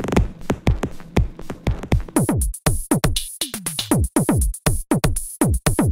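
Electronic music with a drum-machine beat: quick drum hits, several a second, each dropping sharply in pitch, with a high hissing layer coming in about two seconds in.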